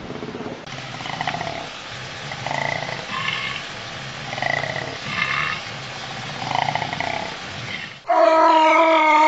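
Koala bellowing: a run of rasping, snore-like calls about every second and a half, then a much louder drawn-out pitched groan starting about eight seconds in.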